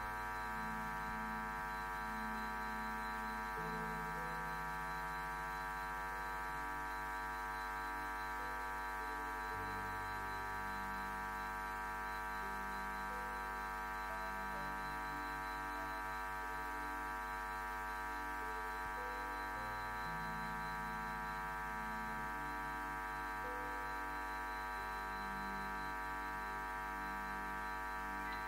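Soft ambient instrumental music: slow sustained chords held over a steady drone, the low notes shifting every few seconds, some with a gentle pulsing.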